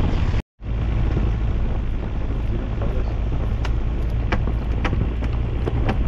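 Car driving up a snow-covered road, with a steady low rumble of engine and tyres after a brief gap near the start. From about three and a half seconds in, scattered sharp clicks sound over the rumble.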